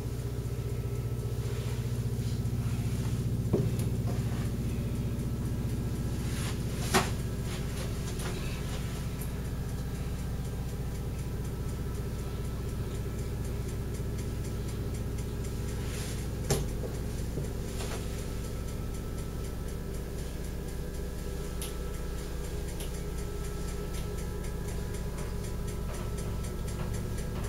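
Steady low mechanical hum of the boat's running machinery, heard inside the cabin, with a few sharp clicks.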